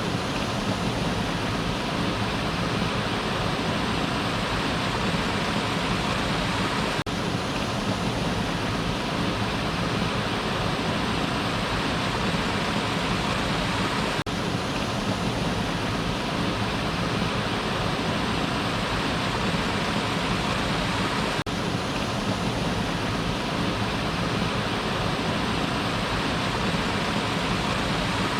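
Waterfall: a steady, even rush of falling water, with a faint click about every seven seconds.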